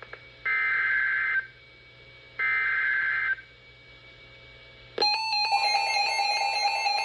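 NOAA Weather Radio SAME header: two buzzy data-tone bursts, each about a second long and a second apart. They close the three-burst digital code that announces a warning. About five seconds in, a loud warbling alert tone starts, its pitches stepping back and forth.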